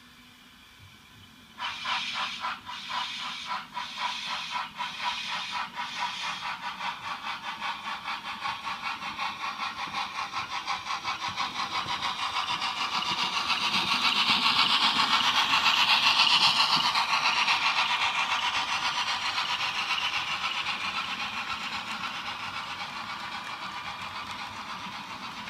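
HO-scale model train running past on the layout's track: a rapid rhythmic rattle that starts abruptly about a second and a half in, grows loudest around the middle as the train comes closest, then slowly fades.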